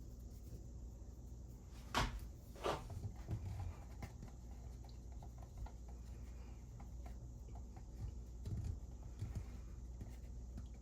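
Two sharp knocks about two seconds in, then a few softer clunks, as parts and cabinet are handled during work on a kitchen sink's plumbing, over a steady low hum.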